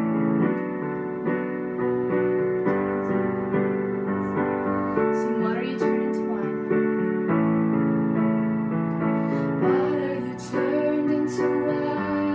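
Keyboard with a piano sound playing slow, held chords that change every second or so.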